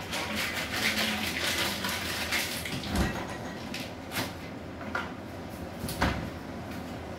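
Kitchen handling noises: scattered clicks and knocks over a rustling background, with two heavier thumps about three and six seconds in.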